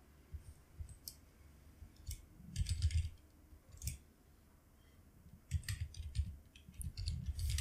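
Computer keyboard typing: scattered key clicks in short runs, with a busier burst a few seconds in and another near the end.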